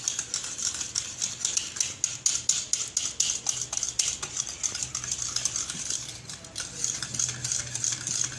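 Fresh cream being beaten in a bowl, the utensil clicking against the bowl in rapid, uneven strokes, several a second.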